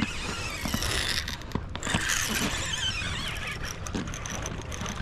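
Baitcasting reel's drag screaming as a hooked tarpon runs and strips line, a high wavering whine over hiss.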